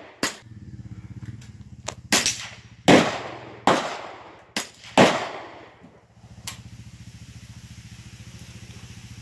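A string of sharp gunshots, about eight in the first six and a half seconds, several with a short echoing tail. A steady low hum runs between them and on after the last shot.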